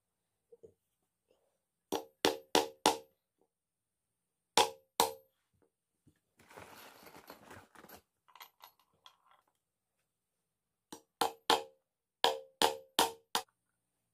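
Claw hammer driving nails into a wooden stool seat: a quick run of four blows, then two, then after a brief rustle three more and a final run of four, each a sharp knock with a short ring.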